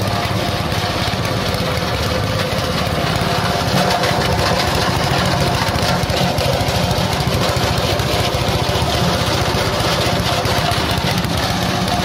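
Small engine running steadily under load, driving a coconut-husk grinder that shreds husk into coir fibre and cocopeat dust.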